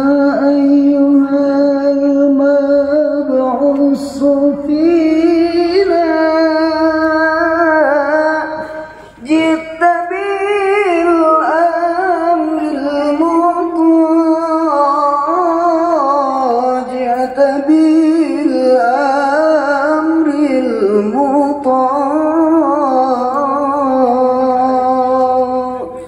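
A solo voice singing a slow, ornamented melody of long held, wavering notes, with a short break for breath about nine seconds in.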